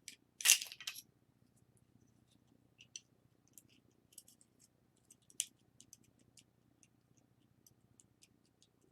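Small plastic and metal parts of a taken-apart camera zoom lens clicking and clattering as they are handled. A louder burst of rattling comes about half a second in and a single sharp click about five seconds in, with a faint steady low hum underneath.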